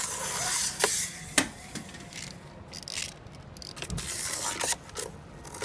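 Wind-up toy cars running on a tabletop: a scraping, whirring rattle of their clockwork and wheels, broken by sharp clicks and knocks as they do their tricks, the loudest knocks about a second in.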